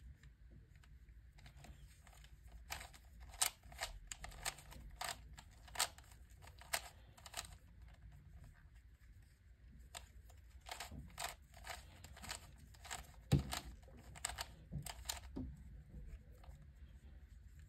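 Plastic Fisher cube puzzle being turned by hand: its layers click and clack as they snap round. The clicks come in two runs of quick turns with a short pause between them.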